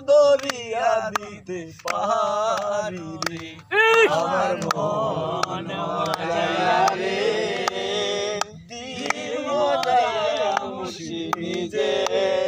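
Group of men singing a Bengali murshidi folk song a cappella, with a lead voice carrying long held, wavering notes and others joining in, over scattered hand claps.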